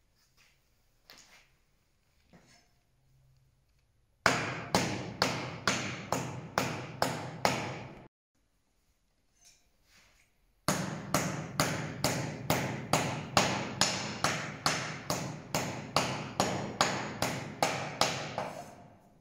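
A hatchet chopping bundles of tow fibre against a wooden chopping stump, cutting it short for fresco plaster. After a few seconds of faint handling there is a run of about nine quick, even chops, a pause of about two seconds, then a longer steady run of about two chops a second.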